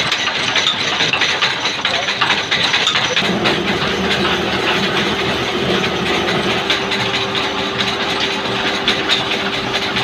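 Belt-driven rice-milling machinery running under electric-motor drive: flat belts and pulleys turning with a dense, rapid rattle of grain and parts. About three seconds in, a steady hum joins and holds.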